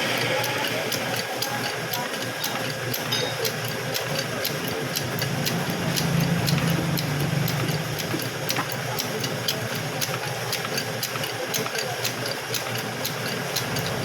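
An engine running steadily, with a fast, even ticking of about three or four ticks a second over it.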